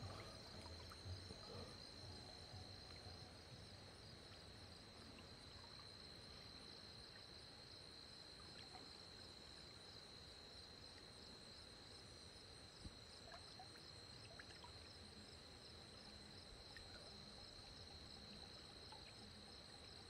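Near silence apart from a faint, steady, high-pitched chorus of insects with a regular pulse, carrying on without a break.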